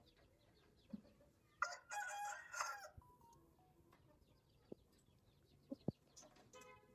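An Aseel rooster crows once, starting about one and a half seconds in and lasting over a second. A short hen cluck follows near the end.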